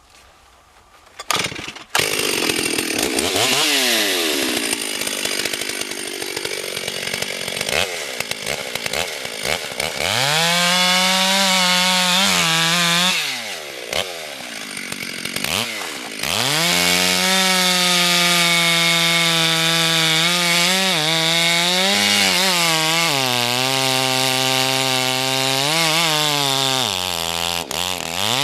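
Two-stroke Stihl chainsaw starting about two seconds in and running at high revs, its pitch sagging and recovering as it cuts into wood. The revs drop off sharply twice near the middle before it is throttled back up.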